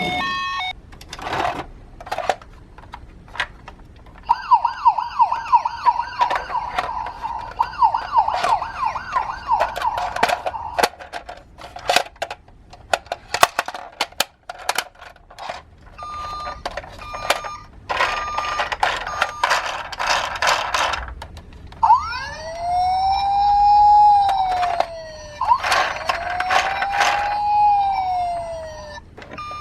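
Electronic sound sirens of toy emergency-vehicle minicars: first a fast warbling siren, then an alternating two-tone hi-lo pattern, then two slow rising-and-falling wails near the end. Sharp plastic clicks and clatters are scattered throughout.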